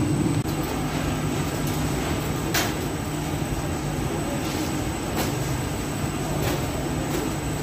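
Industrial conveyor bread oven running with a steady low mechanical hum, from its burner, fans and conveyor. A few sharp clicks and knocks sound over it.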